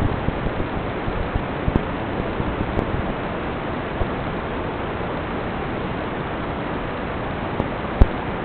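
Steady rushing noise without any clear motor whine, as on an FPV racing drone's flight recording, with a few light knocks and one sharp knock about eight seconds in.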